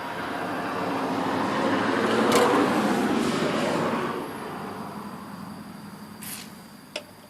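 A road vehicle passing by: its noise swells to a peak about two and a half seconds in, then fades away over the next few seconds.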